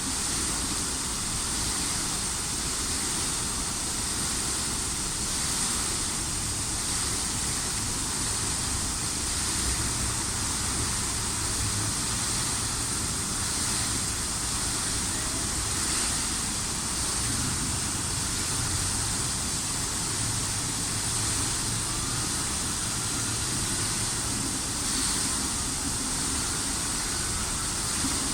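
Public fountain water splashing in a steady rush, over a low hum of street traffic.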